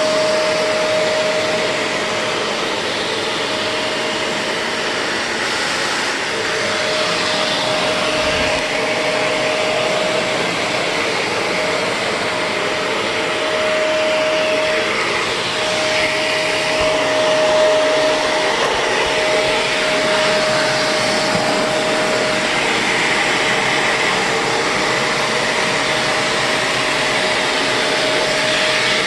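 Shark Navigator vacuum cleaner running steadily with its edge attachment fitted, sucking along edges: a continuous rushing with a steady whine that wavers in the middle and fades after about twenty seconds.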